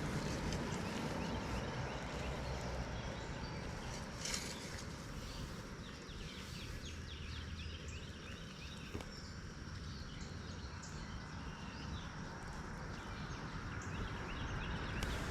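Steady outdoor background noise with faint, high bird chirps for a few seconds in the middle.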